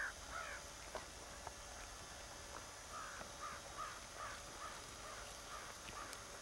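A bird calling: two louder short notes at the start, then a run of about nine quicker short notes, roughly three a second, from about three seconds in until near the end. A few faint knocks come about a second in.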